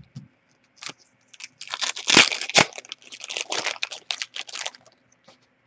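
Hockey card pack wrapper being torn open and crinkled by hand: a run of sharp crackles and rustles lasting about three seconds.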